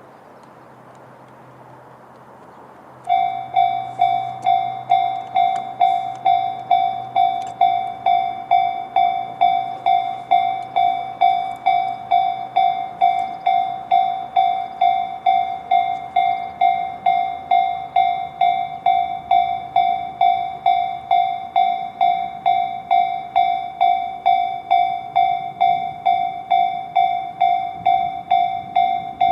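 Japanese railway level-crossing alarm, the Tobu Railway electronic bell known as Tobu sound C, switching on about three seconds in and ringing steadily at about two strikes a second, each strike a bright ding that fades quickly.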